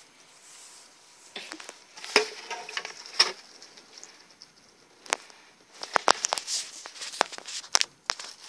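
Rats scrabbling and a hand moving about in a wire-mesh cage with shavings bedding: rustling and crackling with sharp clicks, busiest from about two to three and a half seconds in and again from about five to eight seconds.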